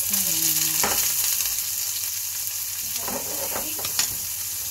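Raw meat dropped into a hot frying pan on a gas stove, sizzling as it hits. The sizzle starts suddenly and then holds steady, with a sharp click about four seconds in.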